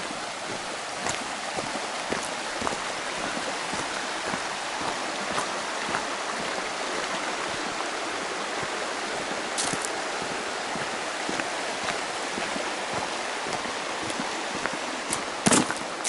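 Steady rushing water noise, with a few sharp clicks, the loudest near the end.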